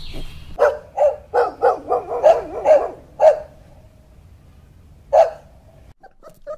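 Dog barking: a quick run of about eight barks in the first few seconds, then a single bark about two seconds later.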